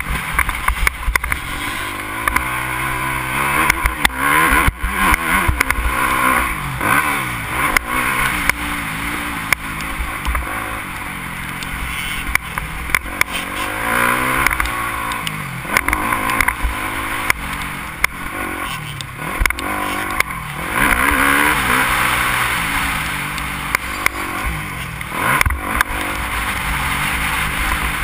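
Yamaha motocross bike's engine under hard riding on a dirt track, revving up and dropping back again and again through turns and over bumps. Wind rushes over the helmet-mounted camera, with occasional sharp knocks.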